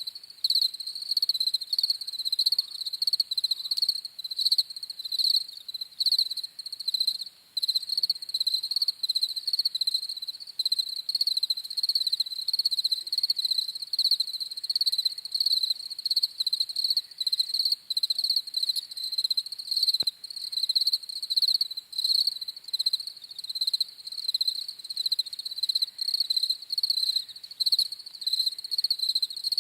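Crickets chirping in a continuous chorus, a rapid high-pitched trill that pulses several times a second. A faint click about twenty seconds in.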